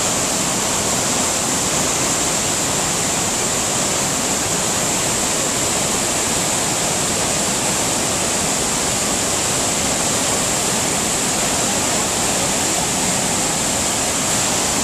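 Iguazu Falls: the steady, loud rush of falling water from a large waterfall.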